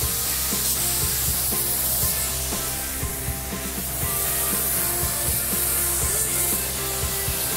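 A paint spray gun hissing steadily as it sprays a fine mist of melted butter.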